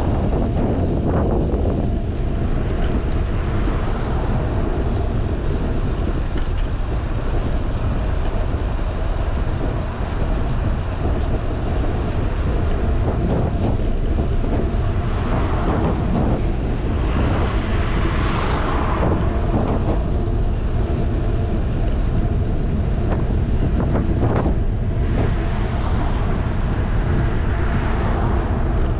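Wind buffeting an action camera's microphone on a moving bicycle: a steady low rumble, with two broader swells of hiss, one about halfway through and one near the end.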